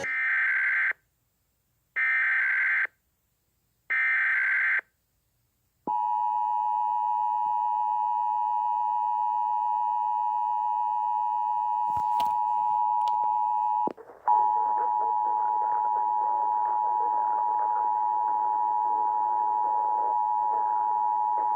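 Emergency Alert System test signal: three short warbling data bursts of the digital SAME header, then the steady two-tone attention signal, which cuts out briefly near the middle and resumes over a background hiss.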